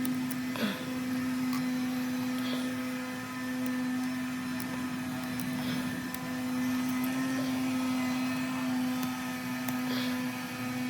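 A steady motor hum at one unchanging pitch.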